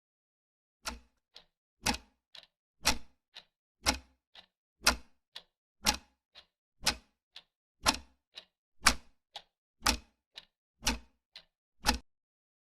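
Steady ticking: a loud tick every second, each followed about half a second later by a softer tick, about twelve pairs in all, with silence between.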